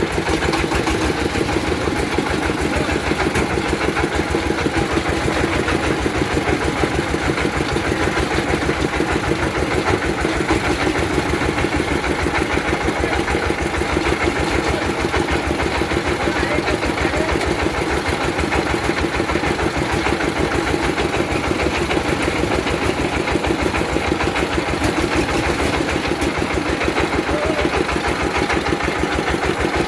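Well-drilling rig's engine running steadily at an even speed, with a fast, regular firing beat.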